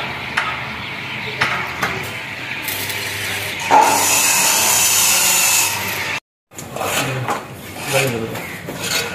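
An angle grinder working the steel of a stair railing: a steady hiss that starts nearly three seconds in and grows louder about a second later as the disc bites. It stops abruptly near the six-second mark. After that come scattered light metallic knocks and scraping.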